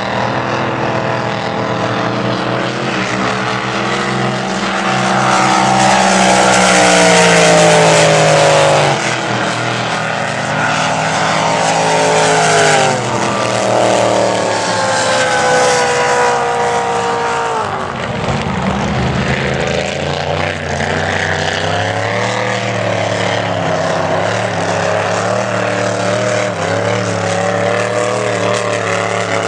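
Supercharged race boat engines running flat out as the boats pass at speed. The engine note rises and then slides down as they go by. It is loudest a few seconds in and drops briefly again before the middle.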